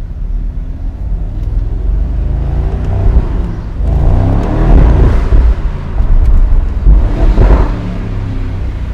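2022 Mercedes-AMG SL 63's 4.0-litre twin-turbo V8 accelerating hard: the engine note rises, drops at an upshift about five and a half seconds in, then climbs again briefly before easing off.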